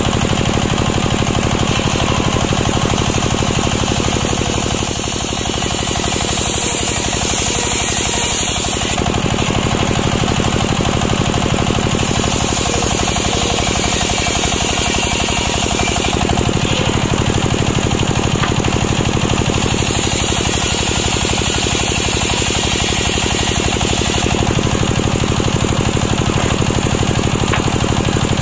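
Table circular saw bench (serkel) with a large blade spinning and ripping planks of waru (sea hibiscus) wood, over a rapid, even knocking beat. Its sound shifts every few seconds as boards are fed through the blade.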